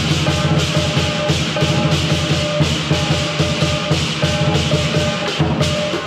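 Lion dance percussion: a large lion dance drum beating in a fast, steady rhythm with clashing hand cymbals. The cymbals drop out for a moment near the end.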